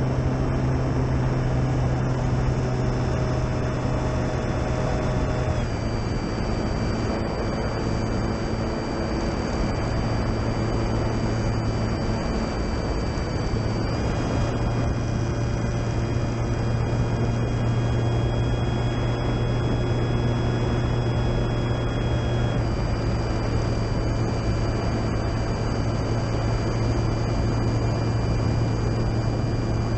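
Electric motor and propeller of a Durafly Tundra RC plane running steadily, a whine over a rushing noise. The whine's pitch steps down about six seconds in, back up around the middle, and down again about three-quarters of the way through.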